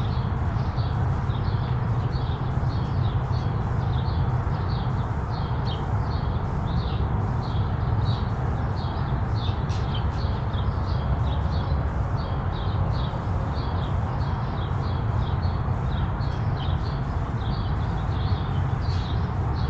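Small birds chirping over and over, several short chirps a second, above a steady low rumble.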